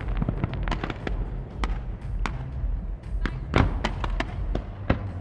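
Aerial fireworks going off: an irregular run of sharp cracks and bangs from shells launching and bursting, with the loudest reports a little past halfway.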